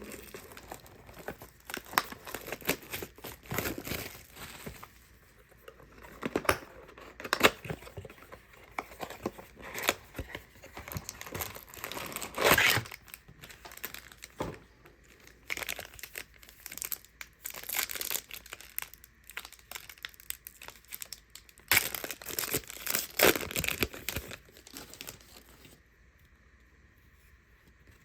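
Trading-card pack wrappers being torn open and crinkled: irregular crackling rustles that stop a couple of seconds before the end.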